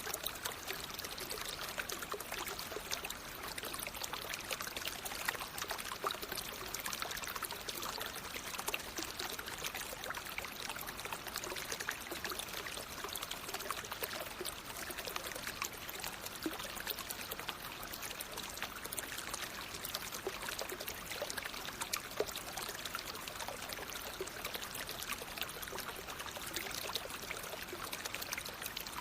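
Natural flowing water: a steady, unbroken rush of many small splashes and trickles, mostly hiss and splatter with little low rumble.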